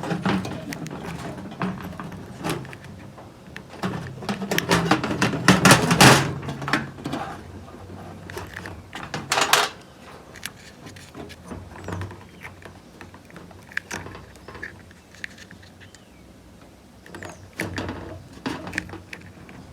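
Scattered clicks, taps and rustling from handling multimeter test probes and microwave high-voltage capacitors on a workbench, busiest in the first half, over a low steady hum.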